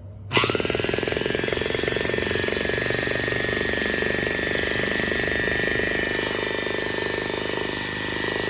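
Vintage Spray Master Model 1948 mini air compressor switched on. Its 110-volt AC electric motor and piston pump start abruptly and run steadily, with a high whine that rises quickly as the motor comes up to speed and a rapid pulsing from the pump.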